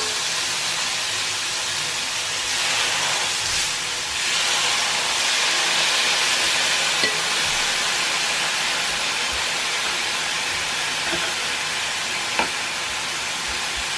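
Raw beef steaks sizzling on a hot electric grill plate: a steady hiss that grows louder about two and a half seconds in as more meat goes down. Metal tongs click a couple of times.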